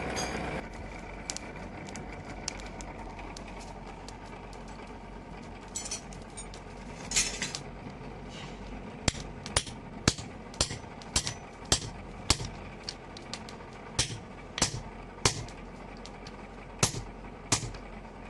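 Hammer striking steel: a few scattered blows, then from about halfway a steady run of sharp strikes, about two a second.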